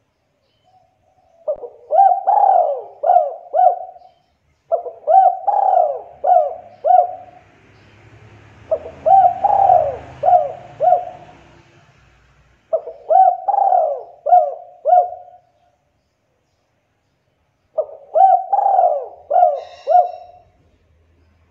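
Spotted dove (tekukur) cooing: five phrases a couple of seconds apart, each a longer rising-and-falling coo followed by three or four quick shorter coos. A faint hiss and hum sits under the middle phrases.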